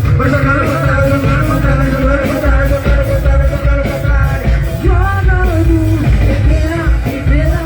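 Live band playing loud, amplified dance music with a heavy bass beat, a melody line and some singing or shouts over it.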